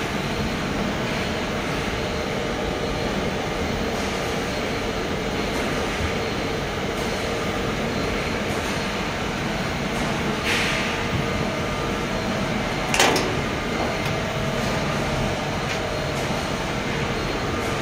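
Steady machine hum from equipment running nearby, with a short rustle about ten seconds in and one sharp knock about three seconds later.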